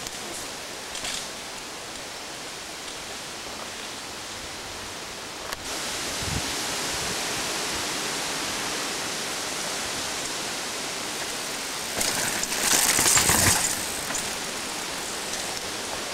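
Steady outdoor hiss of wind and rustling on a camcorder microphone among trees. It grows louder partway through, and there is a brief louder rush about three-quarters of the way through.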